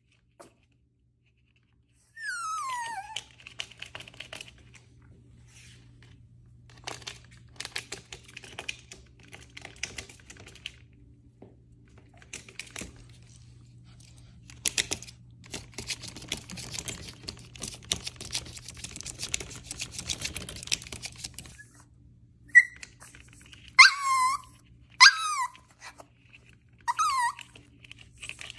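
Maltese puppy giving one falling whine about two seconds in, then a long stretch of light clicking and scratching, then a run of short, high-pitched yappy barks, about one a second, near the end.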